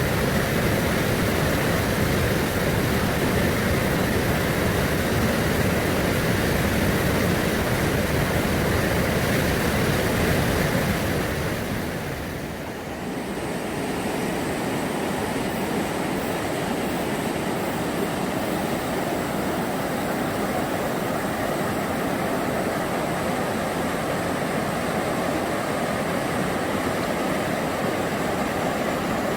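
Rushing mountain stream water, a steady loud hiss and rumble, with a brief dip about twelve seconds in after which it continues a little quieter.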